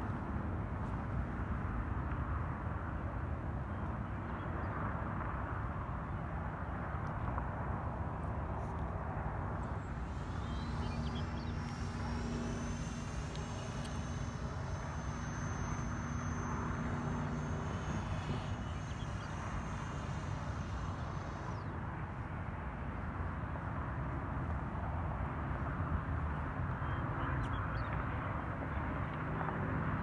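Electric ducted-fan whine from the RC glider's FMS 50 mm fan: it rises in pitch about ten seconds in, holds high for several seconds as the plane passes, then fades out about twelve seconds after it began. Steady wind rushing on the microphone throughout.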